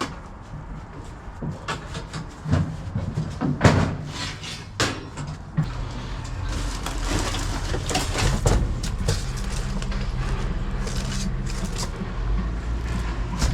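Scattered knocks and clatter, then a steady low hum from about six seconds in.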